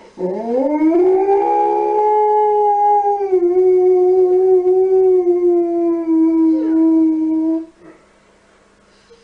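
Siberian husky howling: one long howl that rises in pitch at first, then holds steady and stops abruptly about seven and a half seconds in.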